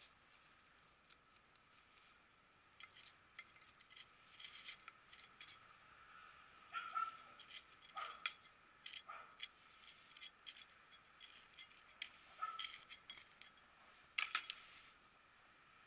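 A small metal soil scoop scraping and scooping gritty potting soil from a plastic tray, the soil pattering into a pot in many short, scratchy bursts.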